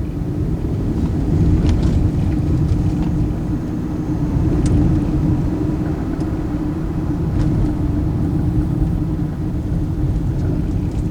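2001 Hyundai Elantra's 2.0L four-cylinder engine and road noise heard from inside the cabin while driving at a steady speed, a low rumble with an even engine tone.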